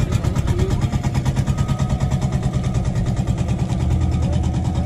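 7 hp Golden Horse marine engine of an outrigger boat (bangka) running steadily, with a fast, even pulse of firing strokes.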